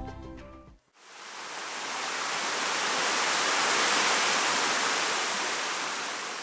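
Rushing water, a steady hiss that fades in after about a second, swells and fades down again near the end; the tail of background music dies away at the start.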